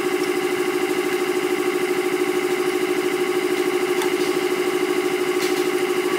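An engine running steadily: a strong, even hum with a fast, regular pulse.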